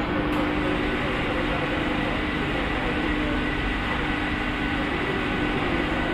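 Steady machinery hum and hiss with a faint constant tone and no knocks or strokes, from the coldbox core shooter's plant running while the machine stands still.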